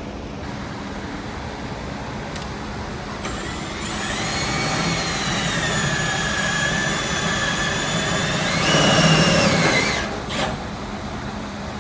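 An electric motor whining under load, starting about three seconds in. Its pitch sags slowly, then jumps higher and louder near the end before it cuts off.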